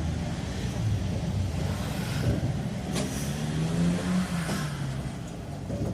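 Tram running, heard from on board: a steady low rumble with a motor tone that rises in pitch from about halfway through, as the tram picks up speed. A sharp click about 3 s in.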